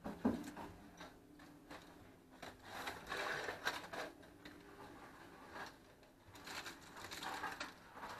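Aluminium foil crinkling and a plastic spice shaker being shaken while seasoning is rubbed into a leg of springbok, with scattered light clicks and rustles that come and go.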